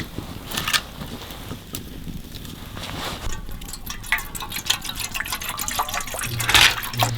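Liquid pouring and splashing, with scattered small clicks and knocks that grow busier in the second half; the loudest splash comes near the end.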